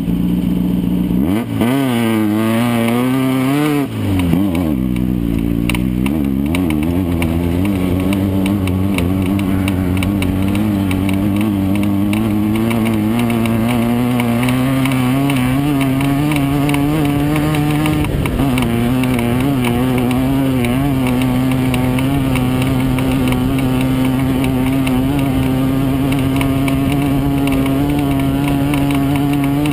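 Air-cooled Volkswagen engine of a Class 9 off-road race buggy running hard. Its revs swing quickly up and down a few times between about two and four seconds in, then hold fairly steady at high revs, with a brief dip around eighteen seconds in.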